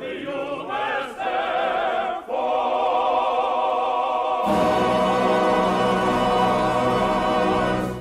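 Accompanied choir singing the closing bars of a U.S. Air Force squadron song, ending on a long held final chord from about four and a half seconds in that fades out at the end.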